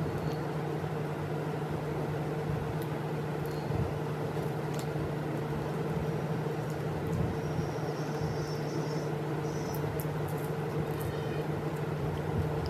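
A steady low hum, two level tones that hold unchanged, with a few faint clicks.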